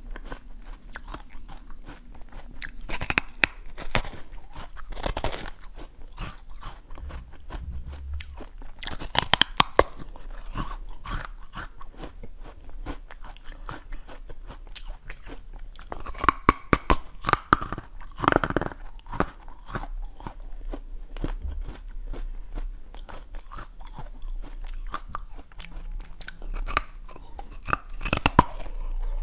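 Bites into a slice of yellow watermelon and chewing, close to a clip-on microphone: clusters of sharp crisp bites every few seconds with quieter chewing between.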